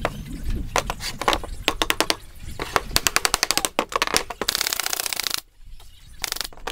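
Pneumatic nail gun firing nails into plywood: a string of sharp shots, with a quick run of them a little under three seconds in. About halfway through comes a hiss of compressed air that cuts off suddenly, and a shorter hiss near the end.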